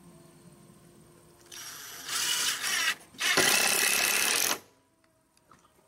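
Ryobi cordless drill driving screws into a pine board, in two bursts. The first starts about a second and a half in and the second, steadier one follows after a brief pause.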